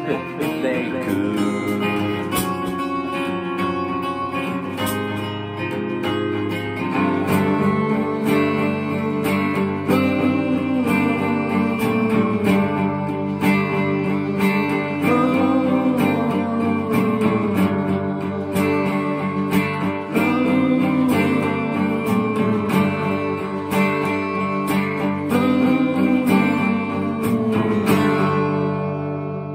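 Acoustic guitar strummed through the instrumental close of a song, no singing; from about seven seconds in a melody with gliding notes plays over the strumming, and near the end the last chord rings out and fades.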